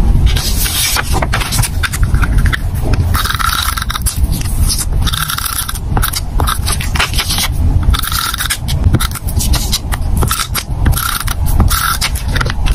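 Glue tape roller drawn along the edges of a sheet of paper, scraping and rubbing in a series of short strokes.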